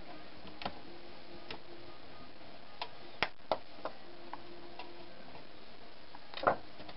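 Scattered light clicks and taps of a screwdriver and screws on the steel case of a computer power supply as the cover screws are taken out. The clicks come irregularly, several of them three to four seconds in, with a stronger knock near the end, over a faint steady hiss.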